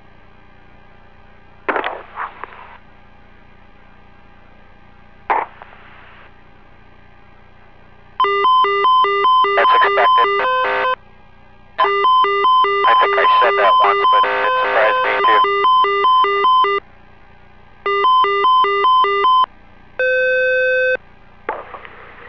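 Electronic beeping tones on the spacecraft's cockpit audio loop. First two short bursts of noise, then long runs of rapid beeps, about three pulses a second in two alternating pitches, and a short steady tone near the end.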